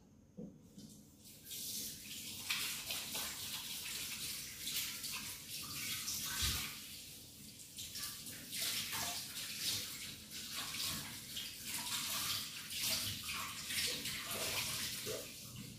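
Water running and splashing, uneven and crackly, starting about a second in and stopping at the end.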